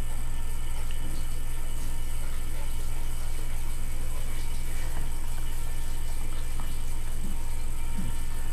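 A steady low hum with an even level throughout, with a few faint small sounds of a dog mouthing a rubber treat ball.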